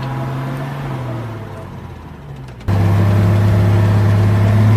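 Heavy truck engines running under load in deep mud. The first engine's pitch sags slightly, then the sound cuts suddenly to a louder, steady engine drone about two-thirds of the way in.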